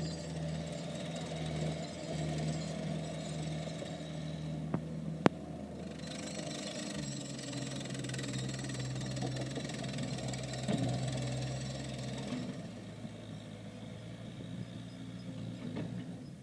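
Caterpillar 287B compact track loader's diesel engine running as the machine drives and turns. The engine note shifts about seven seconds in and drops back near twelve seconds. A single sharp click about five seconds in is the loudest sound.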